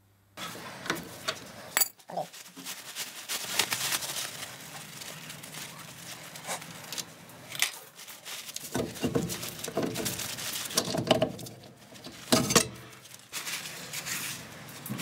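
Mercedes-Benz 180 Ponton front brake drum being wiped with a cloth and pulled off its hub: irregular metallic clinks and knocks with cloth rubbing between them, the loudest knocks about two seconds in and near the end.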